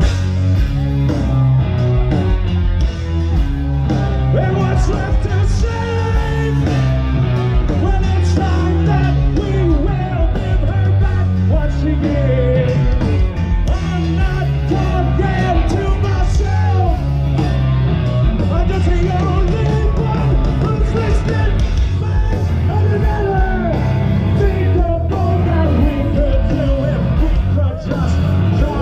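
Live rock band playing through a stage PA, with a singer over strong bass and drums.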